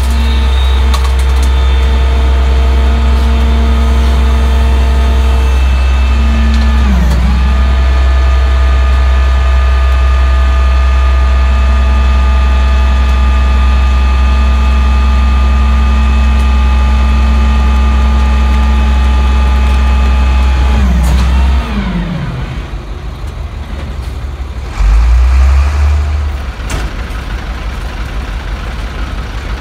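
Leach Alpha rear-load garbage truck running at raised engine speed with steady whining tones. About three-quarters of the way through it drops to a lower, pulsing idle, with one short loud low rumble a few seconds later.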